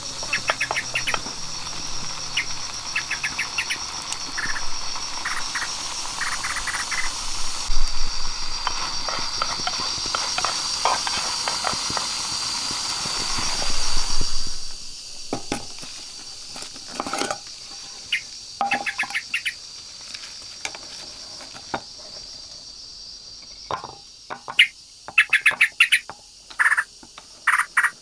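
Jungle ambience: a steady, high, pulsing chorus of insects, with scattered taps and knocks. About halfway through the background changes to a quieter one with sharp knocks, and near the end short calls repeat that sound like frogs croaking.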